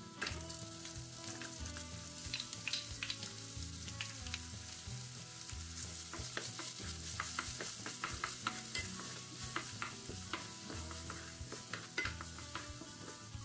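Chopped onions dropping into hot oil with minced garlic in a nonstick frying pan, sizzling up loudly right at the start, then frying steadily while a wooden spoon stirs and scrapes them around the pan in short strokes.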